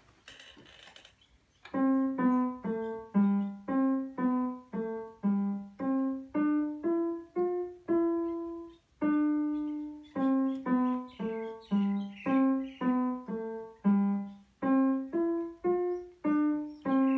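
Digital piano playing a simple melody one note at a time, each key struck separately and dying away, at about two notes a second with a couple of longer held notes in the middle; the playing starts about two seconds in.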